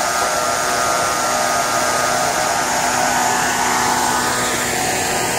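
Portable firefighting smoke-ejector fans running at the doorway: a steady mechanical whine over a rush of moving air.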